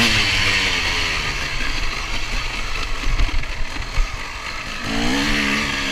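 KTM 250 EXC two-stroke enduro engine on the move: revving at the start, then backed off for a few seconds under rushing wind noise and low thumps, then opened up again with a rising pitch near the end.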